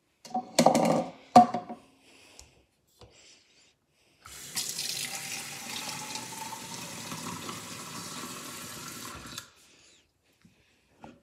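Kitchen faucet running into a plastic cup in a stainless steel sink for about five seconds, with a faint tone rising as the cup fills, then shut off abruptly. Before it, about a second in, come a few loud knocks, louder than the water.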